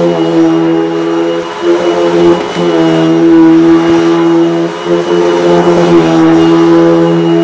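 Eureka Maxima upright vacuum cleaner running as it is pushed over a rug, a steady motor hum whose pitch dips briefly a few times as the head is worked back and forth. Its brush roll is broken.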